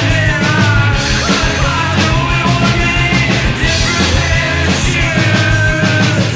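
Loud rock song with a singing voice over a full band.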